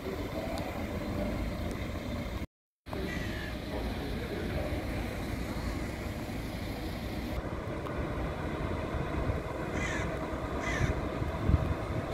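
A steady low outdoor rumble, with two short, harsh bird calls close together near the end, crow-like caws. The sound cuts out completely for a moment about two and a half seconds in.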